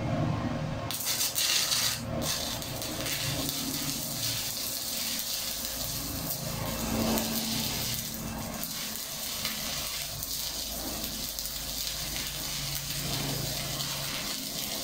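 Stick-welding (SMAW) arc crackling and sizzling steadily once the electrode has been struck, with a few sharper crackles in the first two seconds as the arc catches. The steady crackle is the sign of a well-established arc, with the current set right and a light grip on the electrode holder.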